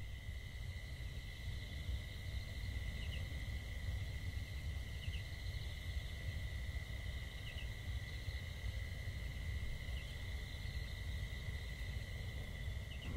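Insects singing in a steady high drone, with a fainter second note above it and a short chirp every two to three seconds, over a low background rumble.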